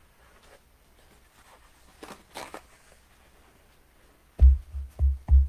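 Three dull, low thumps in quick succession about four seconds in, after several seconds of faint room sound.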